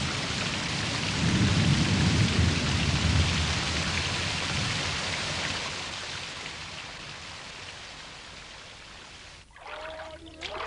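Heavy tropical rainstorm: a steady downpour with a low rumble of thunder swelling about a second in and fading away over several seconds. The rain cuts off sharply near the end.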